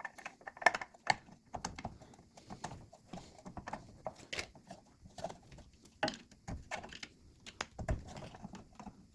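Irregular light clicks and knocks of metal parts and hand tools being handled while lining up and starting the mounting bolts of a front disc brake caliper. The sharpest click comes a little under a second in.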